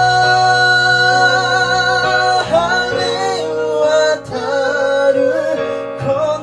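A song performed live: a long held sung note over guitar accompaniment, then the melody moves on about two and a half seconds in.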